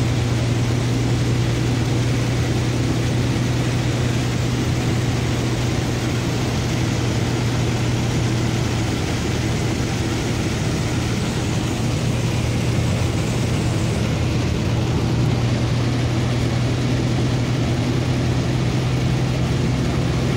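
Truck cab interior: the engine running with a steady low drone at cruising speed, over a constant hiss of rain and tyres on the wet road.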